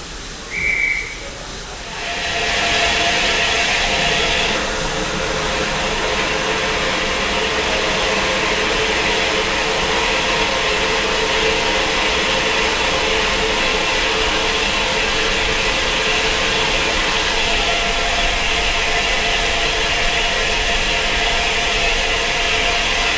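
A short high whistle about a second in, then Southern Railway Battle of Britain class steam locomotive No. 34072 '257 Squadron' blowing off steam with a loud, steady hiss while standing at the platform.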